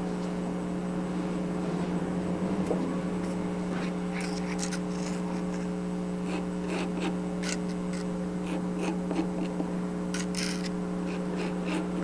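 Steady low electrical hum, with scattered light clicks and rustles of small craft bricks being handled and pressed into place.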